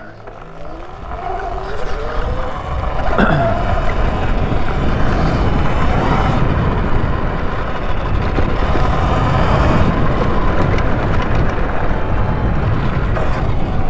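Sur-Ron electric dirt bike pulling away, its motor whine rising in pitch over the first couple of seconds, then riding at a steady speed. Wind buffeting the microphone is the loudest part, with tyre noise from the path.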